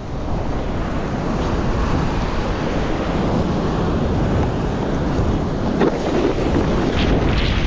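Strong wind buffeting the microphone over the steady rush of breaking surf and spray as a kiteboard rides through rough whitewater.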